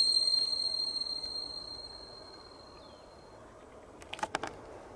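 A bell-like ding from a channel logo sound effect rings on and fades away over about three seconds. Near the end comes a quick cluster of soft clicks.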